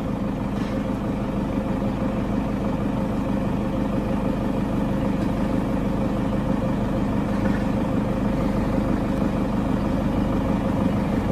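A motor or engine running steadily with an even hum.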